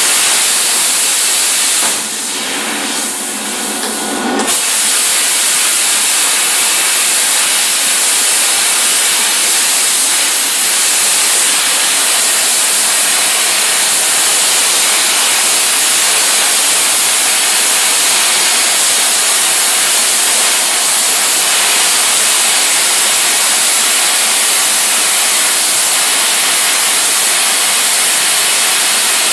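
Plasma cutter cutting steel plate: a loud, steady hiss of air and arc. It changes briefly about two seconds in, then carries on unbroken.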